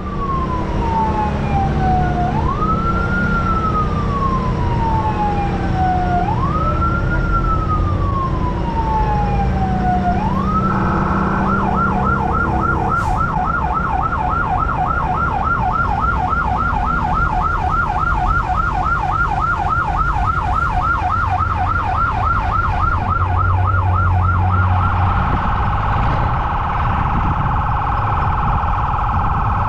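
Electronic emergency siren in slow wail sweeps, each rising quickly and falling over about four seconds. About ten seconds in it switches to a fast yelp of about three cycles a second, and its tone changes again near the end. A truck engine runs underneath.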